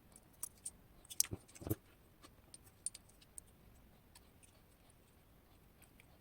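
Small metallic clicks and taps of a TESA T80 lock cylinder and a shim being handled while the lock is taken apart, loudest in a cluster between about one and two seconds in, then a few faint ticks.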